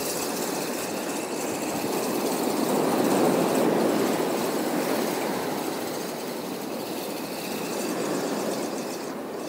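Sea waves washing against the shore, a steady rushing that swells about three seconds in and again near the end.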